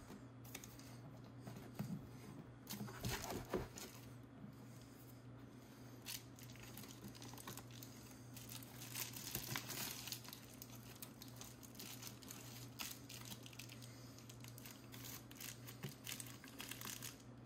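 Foil-faced bubble-wrap insulation crinkling and rubbing faintly, on and off, as hands press a wrapped battery down into a snug plastic battery box.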